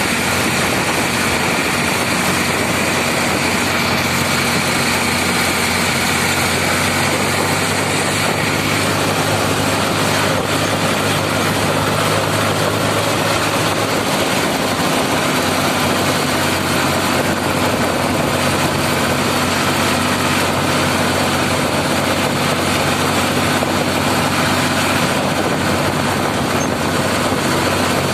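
Ford 3600 tractor's three-cylinder engine running steadily at full road speed, with a steady rush of wind and road noise over it.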